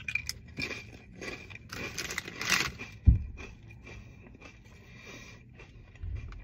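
Crunching bites and chewing of a baked potato crisp, the crunches thickest over the first three seconds and then fading to softer chewing. A single low thump comes about three seconds in.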